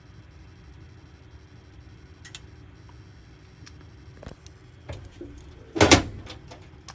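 A few faint clicks, then one loud clack about six seconds in, over a faint low hum.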